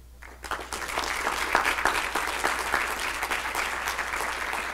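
A small audience applauding, breaking out a fraction of a second in and keeping up a dense, even patter of claps.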